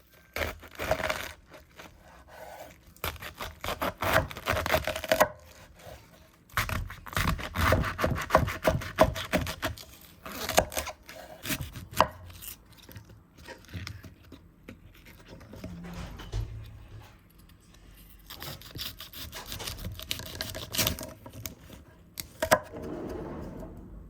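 Kitchen prep on a wooden cutting board: a knife chopping and scraping ingredients in uneven bouts of quick strokes, with pauses between.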